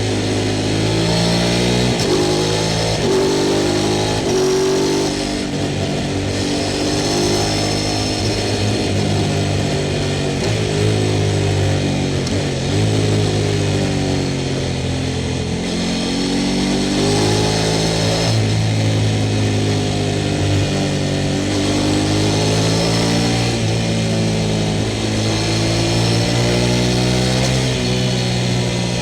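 Sport motorcycle engine under way, its revs climbing and dropping again and again as the bike accelerates and slows.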